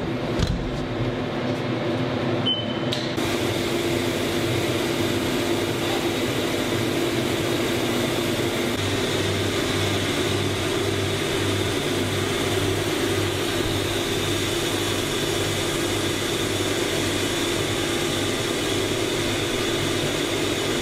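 CNC machining centre running a boring cycle with coolant spray, cutting out a Subaru EJ22 block's cylinder bore for a new sleeve. There is a click near the start, then a steady whir with a high whine, and from about halfway a low, even pulsing.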